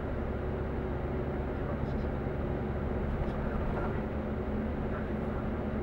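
Vehicle engine and tyre noise heard from inside the cab while driving: a steady low drone with a constant hum.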